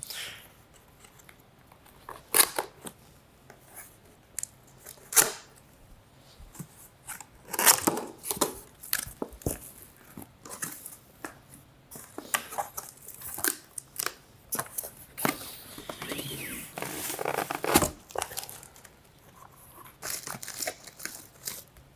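A cardboard monitor box being opened by hand: flaps scraping and tearing in irregular bursts, with plastic packaging wrap crinkling as it is handled.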